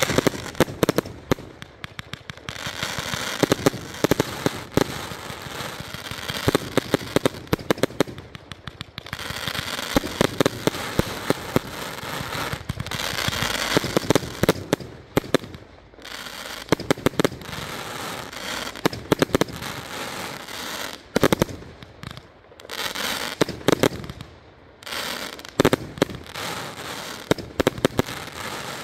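A Nightcrawler 100-shot firework cake firing in rapid clusters of sharp launch and burst bangs, with a hiss of breaking stars between the volleys.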